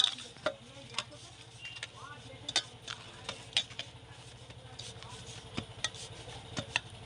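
Hands kneading and shaping maida dough for samosas on a board: irregular sharp taps and clicks about once a second, over a steady low hum.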